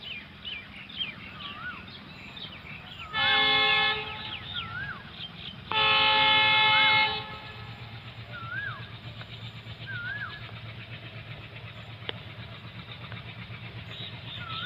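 Distant diesel locomotive sounding its horn twice: a short blast about three seconds in and a longer one about six seconds in. Its engine's low rumble grows steadily from about eight seconds on as it approaches, while a bird repeats a short rising-and-falling whistled call.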